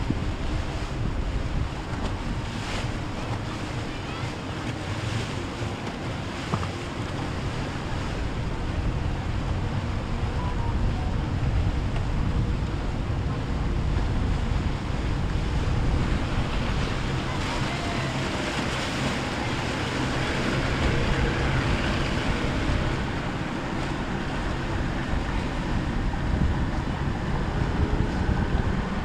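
Wind on the microphone over the steady wash of water churned up by passing motorboats' wakes, with the low hum of their engines underneath.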